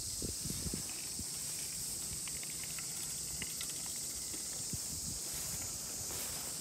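A hand-pushed seeder wheeled over soft tilled soil, with soft footsteps and scattered faint clicks, over a steady high hiss.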